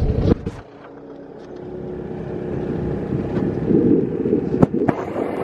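Engine and road noise of a moving vehicle, growing steadily louder, with two sharp clicks near the end.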